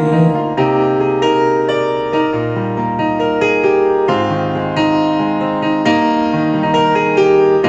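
Instrumental break in a pop ballad, with no singing: a keyboard plays a run of held chords and notes that change about every half second to second.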